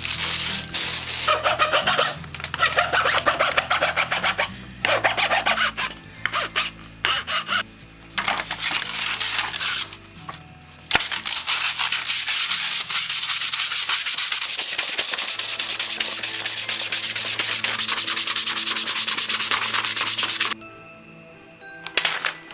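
Sandpaper rubbing along a wooden broomstick section. Short runs of strokes come first, then from about halfway a long unbroken spell of fast back-and-forth sanding that stops shortly before the end.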